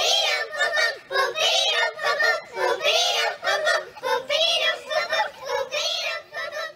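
A group of children singing together in short phrases.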